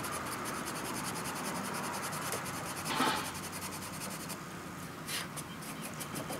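Sandpaper rubbed by hand over the cracked plastic hood of a John Deere GX345 lawn tractor, scuffing the surface before a repair. Quick back-and-forth rasping strokes stop about four seconds in.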